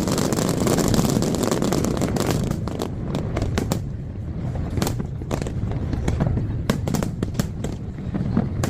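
Fireworks exploding in a dense barrage: a continuous rumble of overlapping bursts for the first couple of seconds, then thinning into separate sharp cracks and bangs, several a second, played back at double speed.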